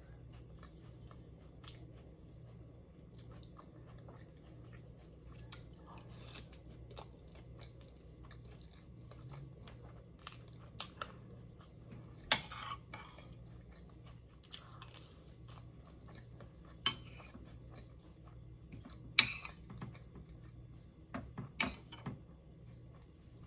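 Chewing and eating sounds close to the microphone, with cutlery scraping and clinking against plates: several sharp clicks, the loudest about halfway through and twice more near the end, over a faint steady low hum.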